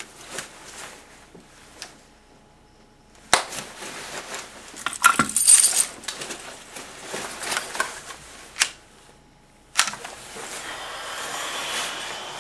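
Small metal objects jangling and clinking, loudest about five seconds in, with a few sharp knocks.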